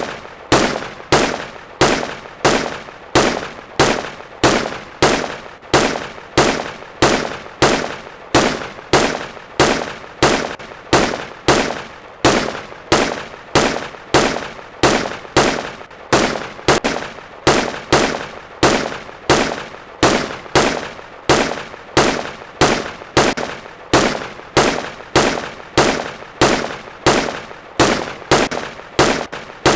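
M1 Garand semi-automatic rifle firing a long, evenly spaced string of shots, a little under two a second, each a sharp crack with a short ringing tail.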